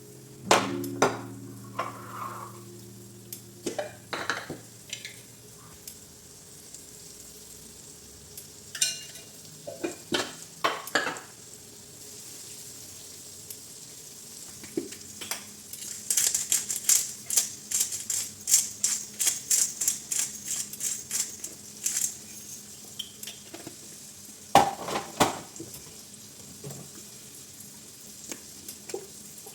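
Food sizzling in a pan while a utensil stirs and knocks against it. There is a ringing metal clang at the start, and from about halfway a fast run of stirring strokes for several seconds.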